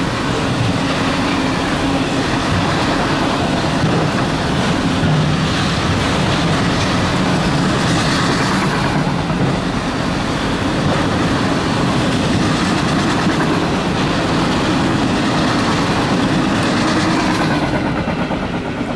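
Freight train of autorack cars rolling past close by, its wheels running steadily on the rails. The sound falls away about a second before the end as the last car goes by.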